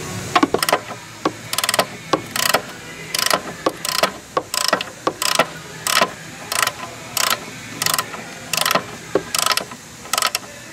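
Hand ratchet wrench tightening a strut mounting nut, its pawl clicking in short, regular strokes about one every two-thirds of a second.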